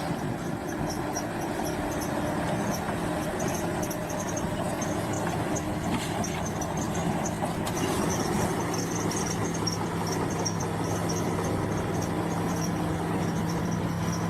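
Bulldozer's diesel engine running steadily under load. A high, rapid chirping sounds above it through most of the stretch.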